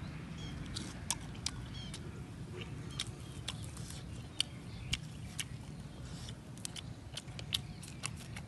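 Close-up eating sounds: irregular wet clicks and smacks of chewing and picking at fish by hand, over a steady low background hum.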